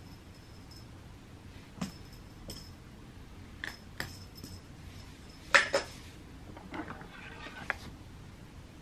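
A scattered series of light clinks and taps, several with a faint high ringing, and the loudest pair close together about halfway through.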